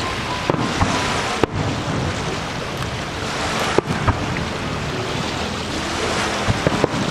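Aerial fireworks bursting: several sharp bangs and pops, a few close together near the end, over a steady rushing noise.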